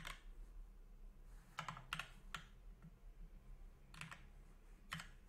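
Computer keyboard typing: a handful of separate, faint keystrokes with pauses between them, a few in a quick cluster about two seconds in.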